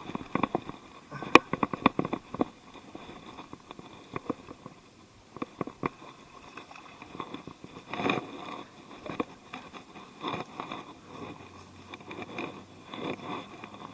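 Irregular clicks, taps and rustling handling noise, a quick run of them in the first two and a half seconds and more clusters later.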